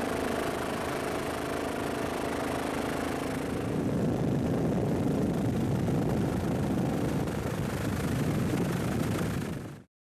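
Engine running steadily with a hum of several steady tones, which gives way to a rougher rumble about four seconds in, then fades out sharply near the end.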